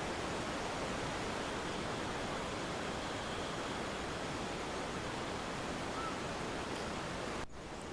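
Steady rushing of ocean surf, an even, unbroken wash of noise that briefly drops out near the end.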